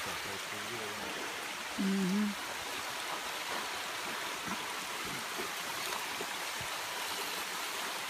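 Shallow creek water running over rocks: a steady rushing. About two seconds in, a brief low hum stands out over it for about half a second.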